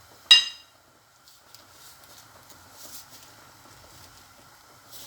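A sharp clink with a brief ring near the start, like a dish or utensil knocked in kitchen handling, then faint soft taps and rustles.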